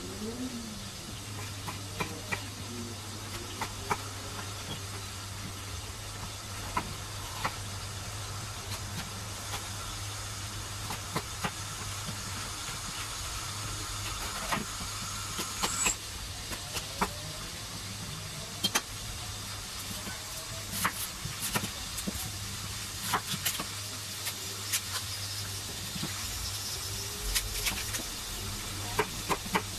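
Chef's knife cutting bell peppers on a wooden cutting board: irregular sharp knocks of the blade on the board, with a quicker run of knocks near the end, over a steady low hum and hiss.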